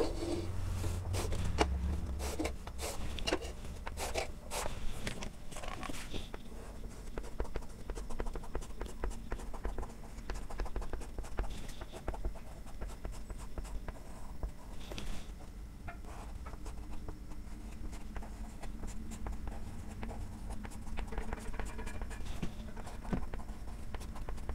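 Chalk writing on a blackboard: a run of short taps and scratches as letters are stroked out, thickest in the first few seconds and sparser after.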